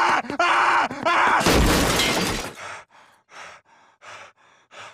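A man crying out, then, about a second and a half in, a loud crash of glass jars and bottles smashing as he falls into a shelf. A few small clinks of falling pieces follow.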